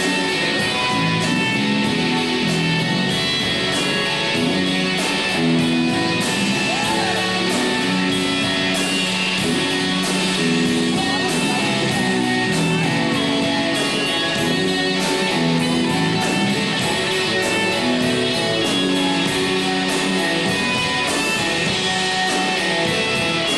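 A band playing live: two electric guitars, bass guitar and a drum kit, with a steady drum beat under sustained guitar chords.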